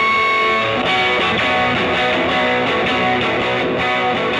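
Background music led by guitar, with a steady rhythm of changing chords and notes.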